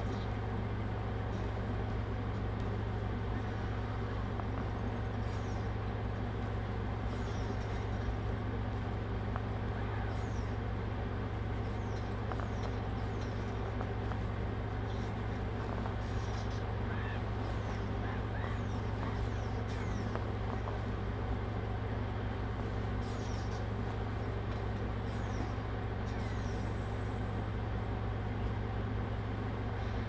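Steady low hum under a constant background rush, with faint short high chirps here and there.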